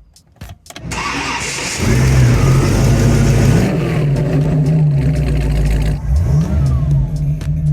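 A 1933 Ford Sedan's 350-cubic-inch V8 cranks over and fires up about two seconds in. It then runs at a steady idle with a couple of brief blips of the throttle.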